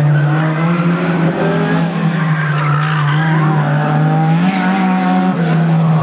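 Front-wheel-drive race cars held at high revs, their engine pitch rising and falling, with tires squealing through the corners.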